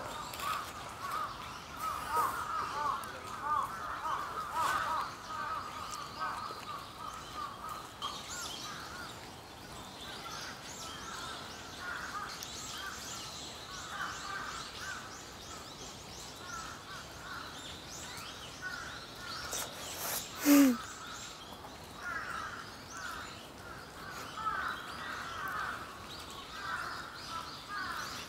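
Birds calling in a park: a continuous chatter of short chirps, with a run of fine high-pitched chirps through the middle. One louder short sound with a falling pitch stands out about twenty seconds in.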